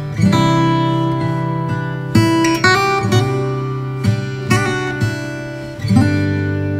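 Background music: acoustic guitar strummed chords, with a fresh strum or chord change every second or so.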